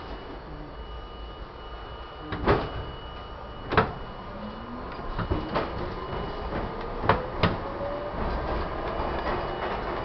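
R-32 subway car interior: a few sharp knocks and clunks over a steady rumble, then the traction motor whine rising slowly in pitch as the train starts to move.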